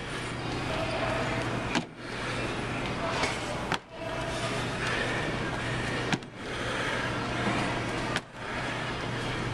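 Steady gym background noise with a low hum, broken about every two seconds by a sharp knock as feet land on a plastic aerobic step platform during repeated jumps, each knock followed by a brief dip in the sound.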